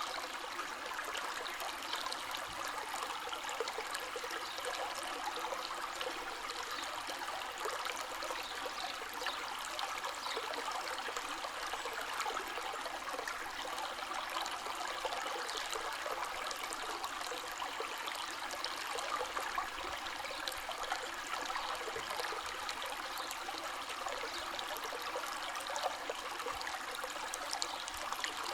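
River water flowing in a steady rush, with many small splashes and trickles running through it.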